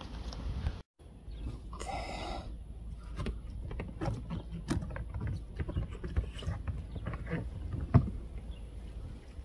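Hand-work sounds of a rubber seal strip being pressed into place along a car windshield: scattered light taps and rubbing, a brief rasp about two seconds in, and one sharper knock near the end.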